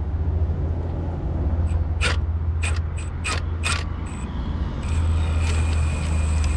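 Power tool driving a socket on a long extension to back out the bolt of the CV axle's support bracket: a steady low mechanical drone that starts suddenly, with a few sharp clicks about two to four seconds in.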